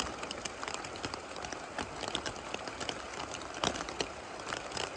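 Steady rain, an even hiss dotted with many sharp ticks of drops landing close by.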